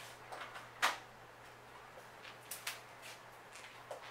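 Plastic dry-erase markers clicking and knocking against each other and the whiteboard tray as they are picked through: a few short sharp clicks, the loudest about a second in and two more close together past the middle.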